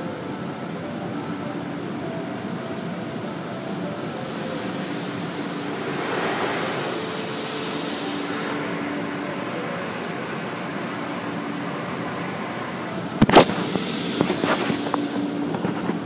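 Automatic car wash heard from inside the car: a steady rush of water and machinery, with a hiss of spray rising about four seconds in and lasting several seconds. About thirteen seconds in a sharp thump, the loudest sound here, is followed by a few seconds of rattling.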